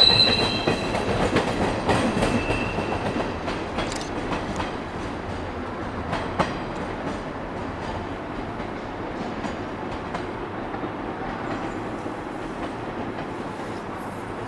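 JR West 103 series electric commuter train pulling away over pointwork, its wheels clacking over rail joints and switches and fading steadily into the distance, with a brief wheel squeal near the start.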